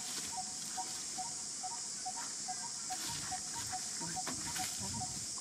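Outdoor ambience: a steady high hiss with a short piping call repeated about two to three times a second, alternating between two close pitches.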